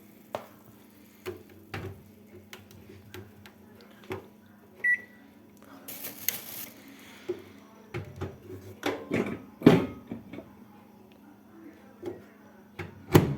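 Kitchen handling sounds: scattered clicks and knocks of dishes and utensils over a steady low hum, with one short high beep about five seconds in and a brief hiss soon after.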